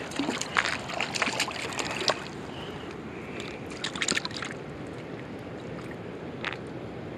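Hooked trout splashing and thrashing in shallow water at the creek's edge: a quick run of sharp splashes in the first two seconds, another flurry about four seconds in, over the steady rush of the flowing creek.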